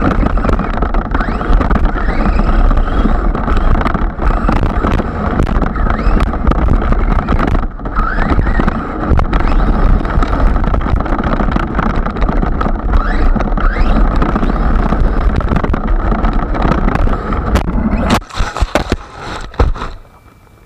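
Team Magic E6 III BES electric RC monster truck driving: dense drivetrain and tyre noise mixed with wind on the microphone, with short rising motor whines now and then. It stops about 18 seconds in, followed by a few brief bursts.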